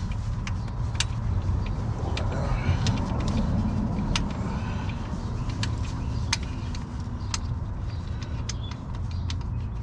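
Scattered sharp metallic clicks from a hand ratchet backing out the 17 mm hub bolts on a Nissan Maxima front hub, over a steady low hum.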